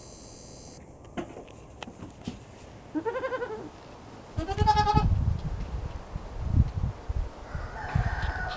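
Goats bleating: two wavering bleats about three and four and a half seconds in, with scattered clicks and low thumps around them.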